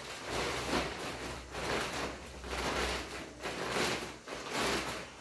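Clear plastic packaging crinkling and rustling in irregular bursts as it is pulled and torn open by hand.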